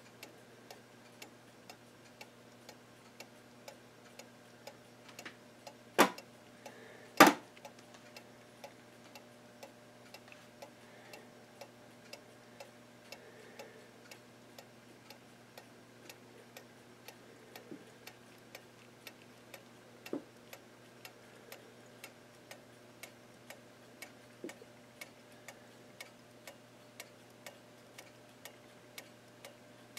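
Seth Thomas 41 AE clock movement's strip-pallet escapement ticking steadily and evenly as the pendulum swings. Two much louder knocks come about six and seven seconds in, and a lighter one about twenty seconds in.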